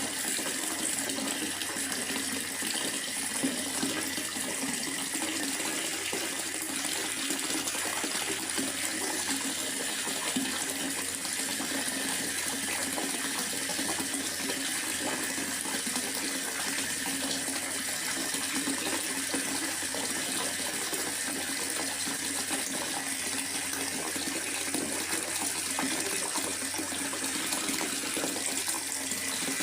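Steady rushing water: an even, unbroken hiss with no distinct drops, splashes or pauses.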